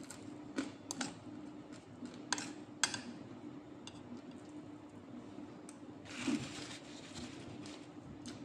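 Quiet eating by hand: a few light clicks and smacks in the first three seconds as rice and smoked fish are picked up and eaten, and a longer rustling, chewing noise about six seconds in, over a faint steady hum.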